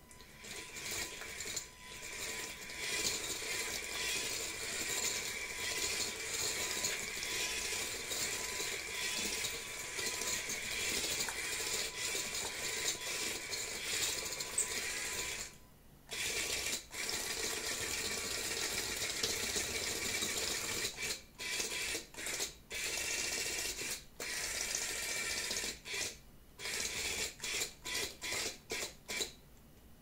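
A four-wheel-drive omnidirectional robot's electric drive motors whir steadily as its metal omni wheels roll on a wood floor. After a pause about halfway through, the robot starts and stops in many short bursts and goes quiet near the end.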